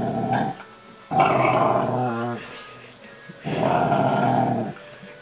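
Rottweiler grumbling and growling in long, low 'talking' bouts while being cuddled, a contented vocalizing and not aggression. Two long grumbles follow the tail of an earlier one, and the first ends in a wavering, moan-like whine.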